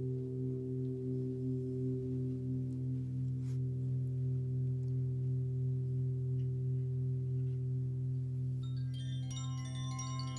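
A deep, slowly wavering hum from a large struck metal sound-healing instrument, such as a gong or singing bowl, rings on throughout. About nine seconds in, wind chimes begin tinkling over it with many bright, high notes.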